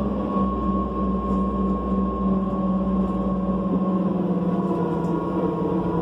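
Inside the cabin of a New Flyer C40LF transit bus: the John Deere 6041H engine and drivetrain running steadily, with a held hum and a fainter high whine that sinks slightly in pitch. A deep low rumble under it drops away about four seconds in.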